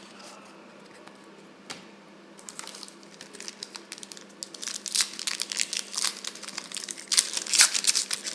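Crinkling and tearing of a foil trading-card pack wrapper being opened, starting about two and a half seconds in and growing louder after about five seconds, with a single click shortly before.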